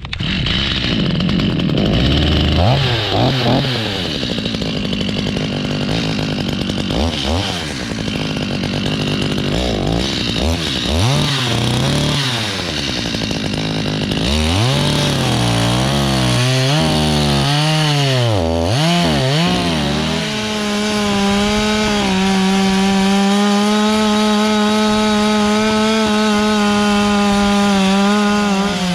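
Chainsaw cutting into a fresh log, its engine speed rising and falling as it works. From about 20 seconds in, it is held at a steady high speed.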